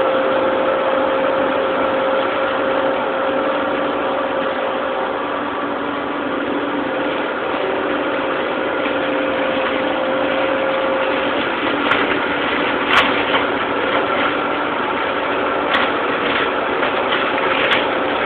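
Tractor engine running steadily while driving a boom-mounted flail mower that is cutting a hedge, with a steady hum throughout. A few sharp cracks come in the second half.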